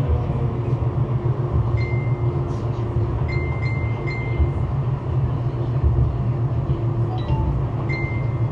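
Light-rail tram running, heard from inside the car: a steady low rumble with a faint steady hum. A few brief high thin tones come through it.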